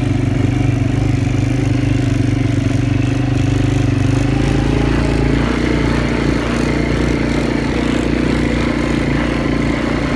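Quad bike (ATV) engine running steadily under way over sand, heard from the rider's own machine; its note changes about halfway through.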